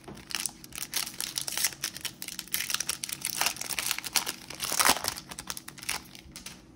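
Foil wrapper of a trading card retail pack crinkling and tearing as the pack is opened and handled, a dense run of crackles that peaks about five seconds in and dies away near the end.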